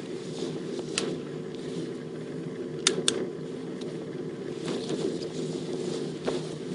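A steady low mechanical hum with a few sharp clicks over it: one about a second in and a quick pair near three seconds, with fainter ones later.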